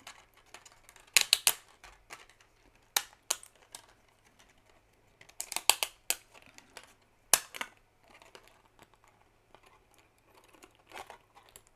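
3D-printed plastic raft being snapped and peeled away from an articulated print: a series of sharp plastic cracks and clicks coming in irregular clusters as the raft breaks free.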